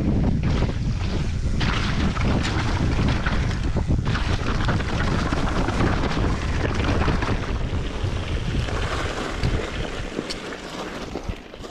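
Wind buffeting the microphone over the rumble and clatter of a downhill mountain bike riding rough trail, with many quick knocks and rattles; it all dies down over the last couple of seconds.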